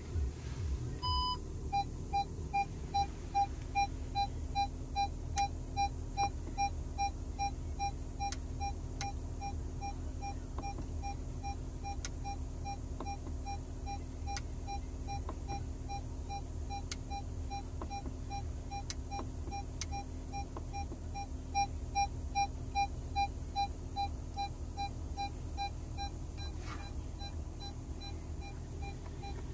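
Audi A6 parking-sensor warning: a short higher tone as the system switches on, then a steady run of short electronic beeps, about three a second. The beeps signal an obstacle detected near the car. A low steady hum sits underneath.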